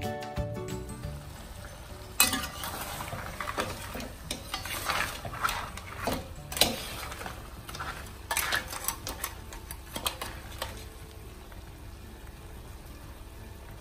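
Chilli crab being stirred in a stainless steel pan with a metal spatula: repeated scraping and clattering strokes of metal and crab shell against the pan over a sizzling sauce, giving way about three seconds before the end to the sizzle alone.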